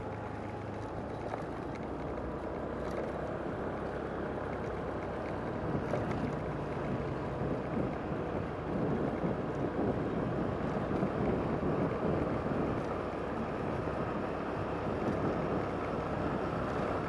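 Steady road and wind noise from a moving vehicle's ride on a paved road, with wind rushing over the microphone and a low rumble underneath.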